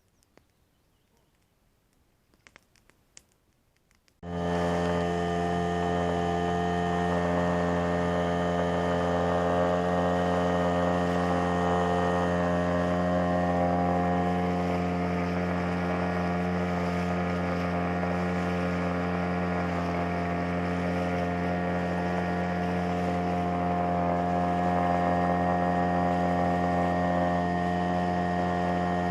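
Boat outboard motor running at a steady speed while under way, coming in suddenly about four seconds in after near silence with a few faint clicks.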